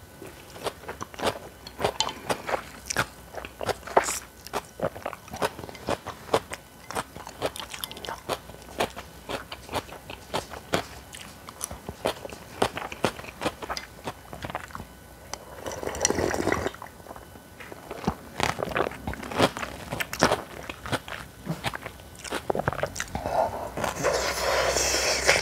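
A person chewing crunchy food close to the microphone: many sharp crunches in quick succession, with a longer noisy stretch about two-thirds of the way through and another near the end.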